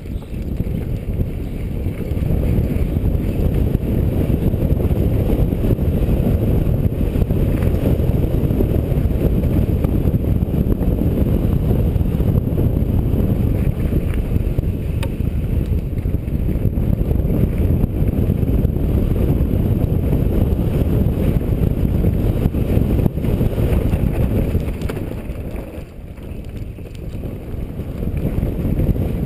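Loud steady wind rumble buffeting a helmet-mounted GoPro HD Hero's microphone as a mountain bike runs fast down a dirt trail, mixed with tyre and bike rattle. It eases for a couple of seconds about 25 seconds in, then returns.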